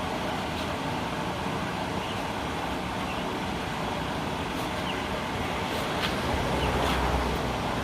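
Steady background rumble and hiss of traffic, with a few faint clicks. A deeper rumble swells about six seconds in, like a vehicle passing close by.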